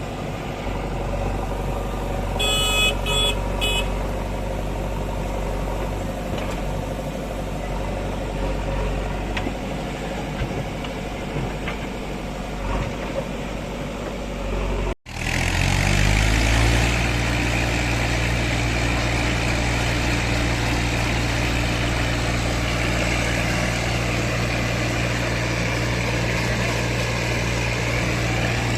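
Diesel engines of a backhoe loader and tractor at work, running steadily, with a short high-pitched multi-tone beep about two and a half seconds in. About halfway through the sound cuts out for an instant and comes back as a louder, deeper engine note that revs up briefly and then holds steady.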